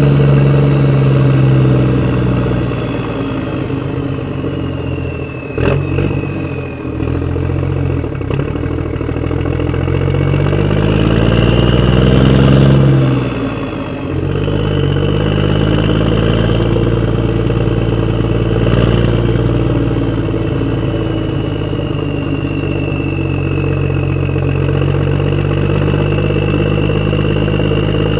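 Remote-controlled Bruder Claas Axion toy tractor running, an engine-like drone with a high whine above it, both rising in pitch about ten to thirteen seconds in and dropping back shortly after. A sharp click about five and a half seconds in.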